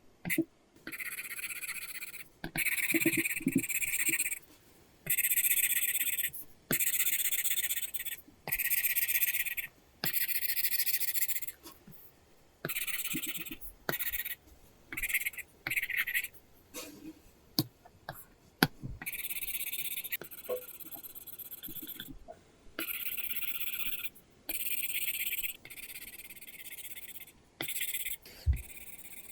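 Apple Pencil tip scratching across a paper-texture screen film on an iPad, drawn in a series of separate strokes about one to two seconds long, with light taps of the pencil tip between strokes.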